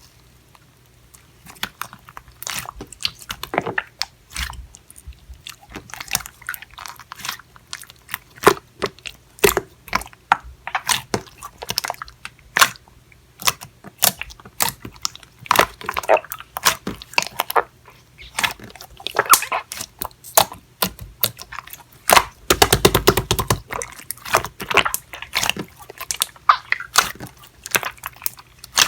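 Clear slime being squished and pressed by hand, giving irregular sharp clicking and popping sounds, with a fast run of pops about three quarters of the way through.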